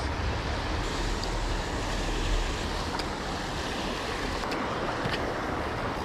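Creek water rushing over a shallow rocky riffle, a steady hiss, with wind rumbling on the microphone during the first couple of seconds.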